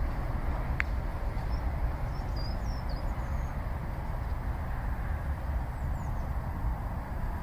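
Steady low outdoor rumble, with a few faint, high bird chirps about two to three seconds in and again near six seconds.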